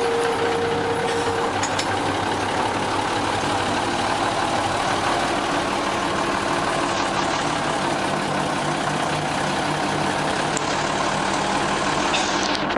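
Gulflander diesel rail motor under way: a steady engine drone mixed with wheel and track noise, heard from inside the passenger car.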